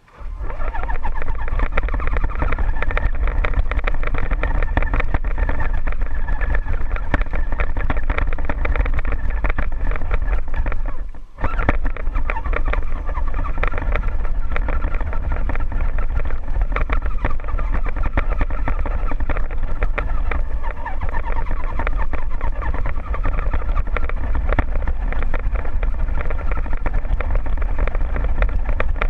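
Scale RC crawler's electric motor and gearbox whining steadily, heard from a camera mounted on the truck, with the drivetrain and body rattling over rough ground. The whine wavers as the throttle changes and drops out briefly about eleven seconds in.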